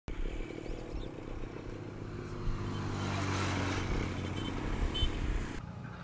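A motor engine running, growing louder through the middle and easing off, its higher sound cutting off abruptly shortly before the end.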